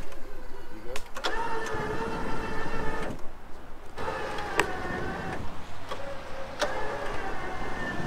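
Winch motor whining in three short pulls of one to two seconds each with brief pauses between, a few sharp clicks among them, putting tension on the line in a test pull on a stuck vehicle.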